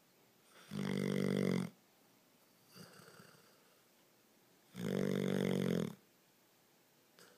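Snoring in a steady sleep rhythm: two loud, buzzing snores about a second long each, some four seconds apart, with a fainter breath between them and another near the end.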